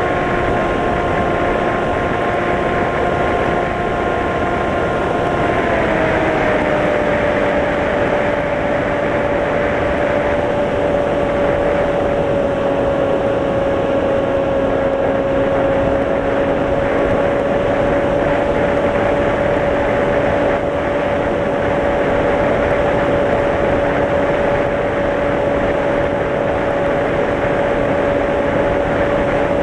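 Electric motor and propeller of a Mini Drak FPV plane, heard from the onboard camera: a steady whine over constant wind rush. The whine drops to a lower pitch about six seconds in as the throttle comes back, then holds level.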